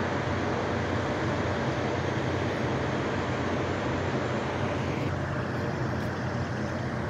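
Steady vehicle-type noise: a low rumble under an even hiss. The upper hiss drops away about five seconds in.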